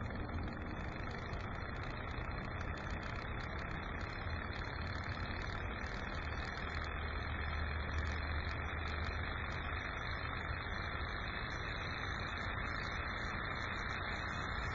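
Small solar-powered Stirling engine running steadily, driven by sunlight from a Fresnel lens focused on steel wool inside its glass displacer chamber. A steady low hum that is strongest from about six to ten seconds in, with faint light ticking.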